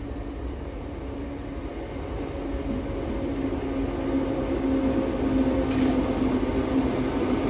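A train running at the station platform: a steady machine hum over a low rumble that grows gradually louder.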